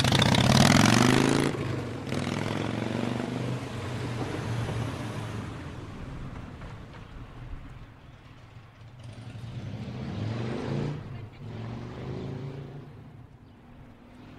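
Motorcycle engine revving hard in the first second or so, then running steadily at low speed, with a second rev about ten seconds in, fading toward the end.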